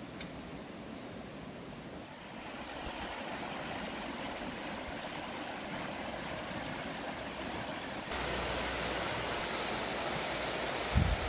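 A fast river rushing over rocks: a steady rush of water that grows louder about two seconds in and again near the end, with a low thump just before the end.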